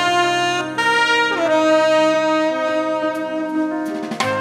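Jazz horns, saxophone and trumpet, holding long notes together in harmony. The notes shift about a second in, slide down a little later, and move to a new chord near the end.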